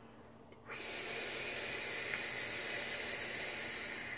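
A long drag on a DotMod Petri RTA vape tank: a steady hiss of air drawn through the tank's airflow while the coil fires. It starts about a second in and cuts off near the end.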